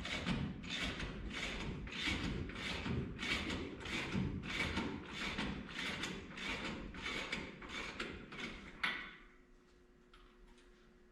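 Hand ratchet wrench being worked back and forth on the wheel's lug fasteners, a rhythmic ratcheting about twice a second that stops with a sharp click about nine seconds in.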